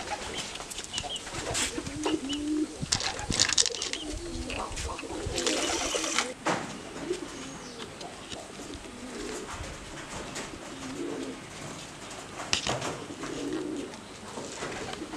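Pigeons cooing again and again, with scattered clicks and knocks and a short rush of noise about five to six seconds in.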